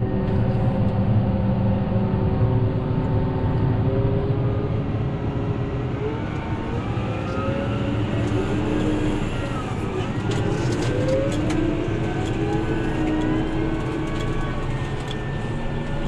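Tractor engine running steadily, heard from inside the cab, its pitch rising and falling several times around the middle.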